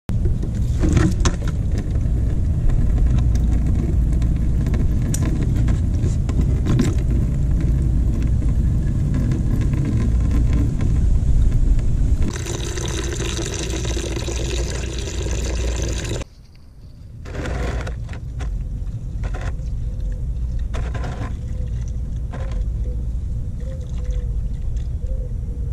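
Green engine coolant splashing into a plastic bucket as it drains in a stream from a motorcycle's cooling system, over a steady low rumble. About two-thirds through, the sound drops abruptly, and the pour goes on more softly.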